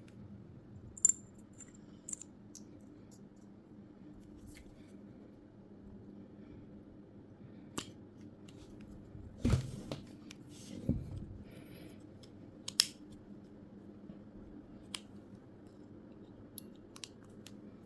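Small metal clicks and taps from handling and fitting a replacement blade onto a hair trimmer, scattered and irregular, a few louder ones near the middle, over a faint steady hum.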